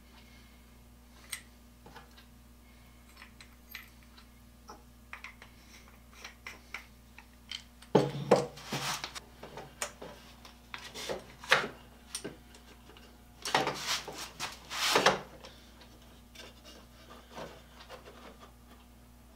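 Small clicks and taps of screws and hand tools being handled on a wooden workbench, then louder stretches of wood rubbing and scraping as birdhouse boards and a bar clamp are set in place, about eight seconds in and again around fourteen seconds in.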